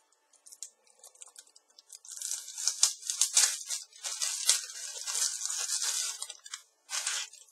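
Cellophane wrapper of a 1989 Fleer baseball card pack being torn open and crinkled by hand: a dense crackling that starts about two seconds in, with one last short burst near the end.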